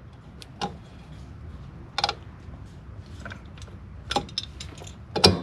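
Scattered metal clicks and clinks of side cutters working on drum-brake hardware as the spring is pulled back and the parking brake cable is unhooked from the brake shoe's lever arm, with a sharper clank near the end, over a low steady hum.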